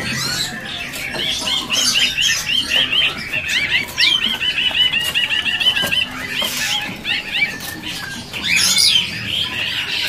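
Caged songbirds chirping and calling together, with rapid runs of short repeated chirps, several a second, and a few higher squeaky calls mixed in.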